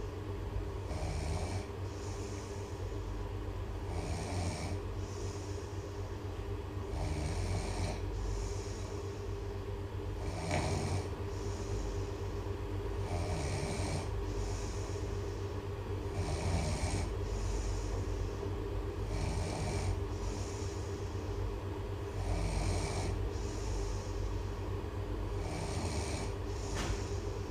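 A person snoring loudly, one snore about every three seconds, over a steady low hum.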